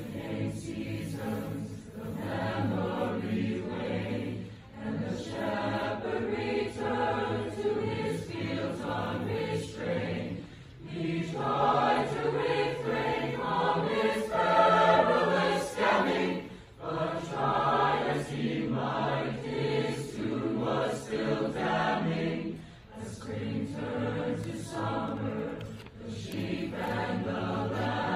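Choir singing in phrases about six seconds long, each followed by a brief pause for breath.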